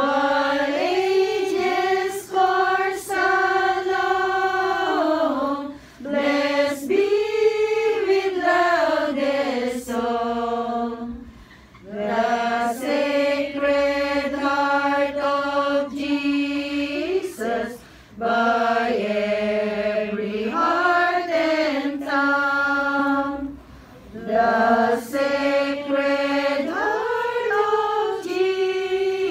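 A group of women singing a hymn together, in sung phrases of a few seconds with short breaks between them.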